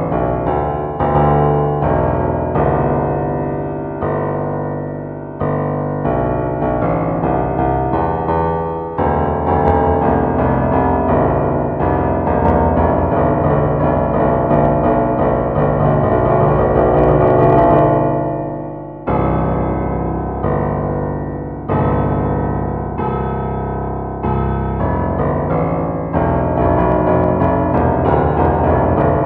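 Piano tones from a phone piano app: notes and chords struck one after another and left ringing so they pile up, with the sound dying away briefly about two-thirds through before a new loud chord.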